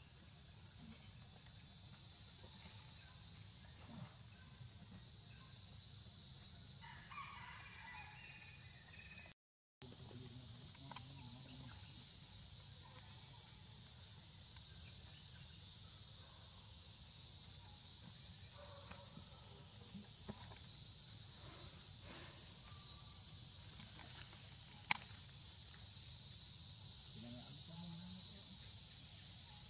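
Steady, high-pitched chorus of insects in the forest, a continuous drone that breaks off for a moment about ten seconds in.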